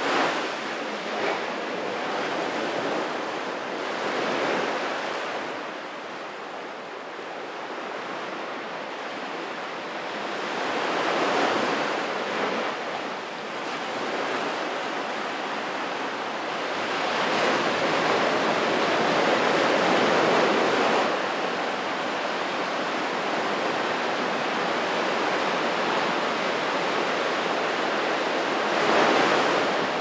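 Small waves breaking and washing up a sandy beach. The surf rises and falls with each wave every few seconds.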